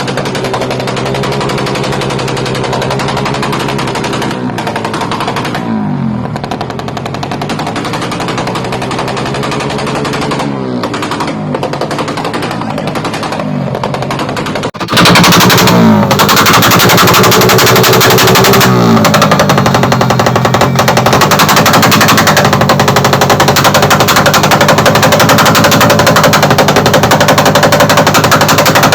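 Suzuki Raider 150 carburettor motorcycle's single-cylinder four-stroke engine with an aftermarket AUN exhaust pipe, revved again and again with rapid backfiring crackle from the pipe. A brief dip, then it gets much louder about halfway through and stays loud.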